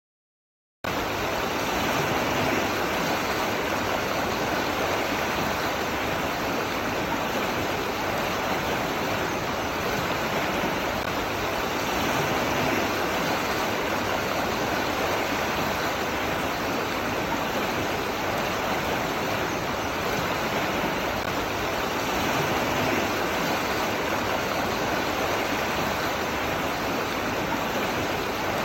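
Running water rushing steadily, cutting in suddenly about a second in.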